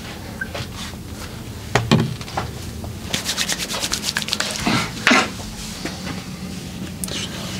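Hands massaging a person, rubbing over skin and clothing, with a fast run of strokes about eight a second starting about three seconds in and a couple of louder thuds.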